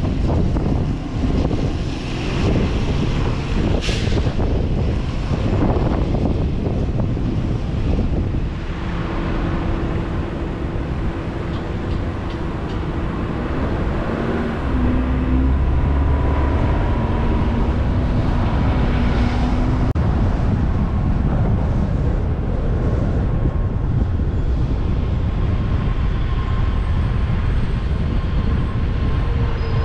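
A car driving, with steady road and engine noise. Faint, steady whining tones come in about a third of the way through and carry on to the end.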